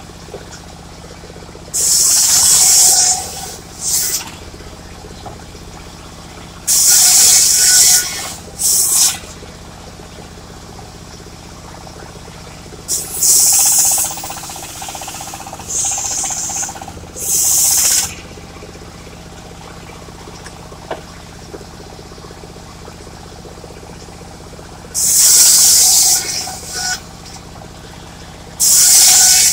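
Engine of a mobile circular sawmill running steadily, broken about ten times by loud hissing bursts of a second or so each.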